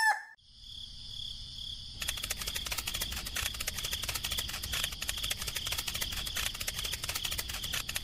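Rural ambience of insects chirping in a steady high trill; the tail of a rooster's crow cuts off at the very start. About two seconds in the trill turns into a fast, dense pulsing.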